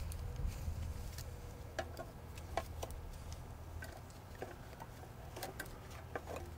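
Light, irregular clicks and taps of wire leads and gloved hands against a sheet-metal buck-boost transformer enclosure, over a low steady hum.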